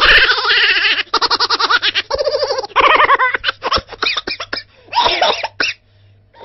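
Laughter sound effect: a high-pitched laugh in quick, choppy bursts that stops abruptly about five and a half seconds in.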